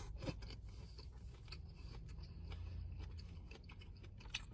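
Close-up eating sounds from a seafood boil: scattered small clicks and crackles of food being handled and bitten, over a low steady hum.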